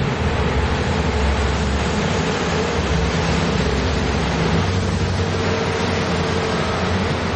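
Freight train of cement-powder wagons rolling past close by: a steady rumble and clatter of steel wheels on rail, with a low steady hum underneath.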